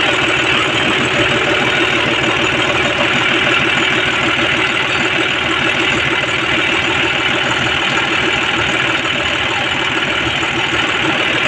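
John Deere 5050D tractor's three-cylinder diesel engine idling steadily, heard up close at the rear of the tractor.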